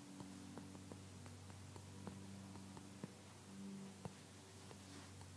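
Faint irregular ticks of typing on an iPad touchscreen, coming quickly at first and thinning out after about three seconds, over a low steady hum.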